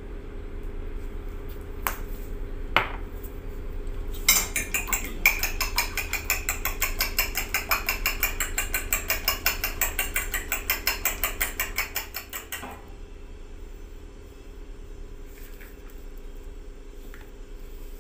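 Eggs being beaten with a fork in a ceramic bowl: a couple of taps, then rapid, even clinks of the fork against the bowl for about eight seconds, stopping abruptly.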